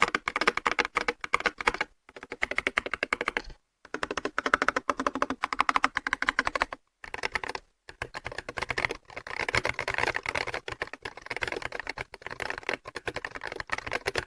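Budget magnetic-switch mechanical keyboard being typed on in a sound test: fast, dense key clacks, stopping briefly a few times.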